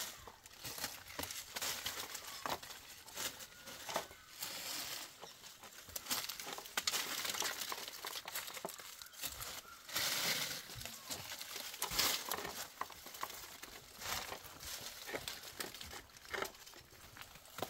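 Dry branches and dead leaves rustling and crackling as they are handled and heaped into a pile, with irregular crunches and snaps.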